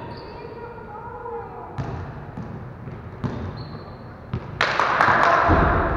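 A basketball dribbled on a gym floor, a few separate bounces echoing in the hall. Near the end comes a loud rushing noise lasting over a second.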